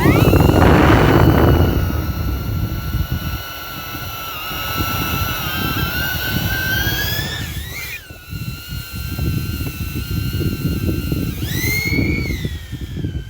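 Quadcopter drone's propellers whining with a steady pitch that climbs and falls back twice as the motors speed up. Wind buffets the microphone, most heavily in the first two seconds.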